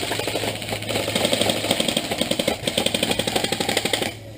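Airsoft guns firing on full auto: a fast, even mechanical clatter of shots that keeps going and stops about four seconds in.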